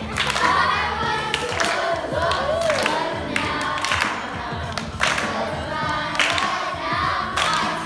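A group of children singing a song together, with hand claps now and then.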